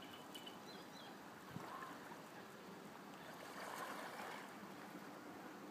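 Faint steady outdoor wash of water and wind, with a couple of faint high chirps about a second in.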